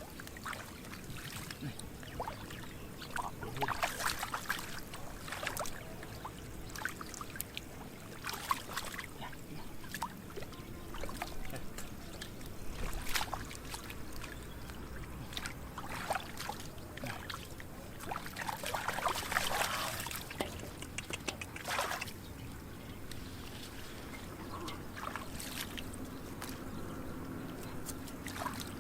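Shallow water splashing and sloshing irregularly, with a few louder splashes scattered through.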